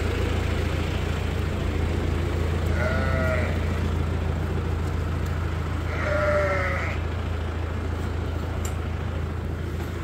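Steady low drone of a tractor running a New Holland 352 grinder-mixer as creep feed is put out. Sheep bleat twice over it, about three seconds in and again around six seconds.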